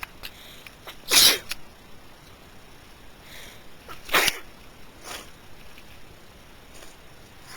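A person sneezing twice, about three seconds apart, in the middle of a sneezing fit, with fainter short sounds between the sneezes.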